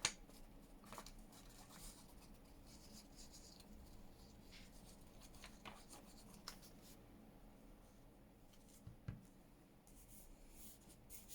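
Faint paper handling: light rustles and small taps as cut paper pieces are placed and pressed down onto a journal page, with one soft thump near the end.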